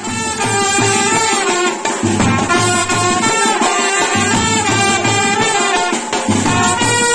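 Music led by brass instruments playing a melody over a steady drum beat, rising in at the start.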